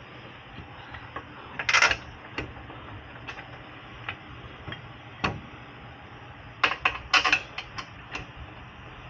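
Scattered metallic clinks and knocks of brake parts being handled as the rotor goes back onto the rear hub: a short burst about two seconds in, a single sharp knock past halfway, and a quick cluster near seven seconds.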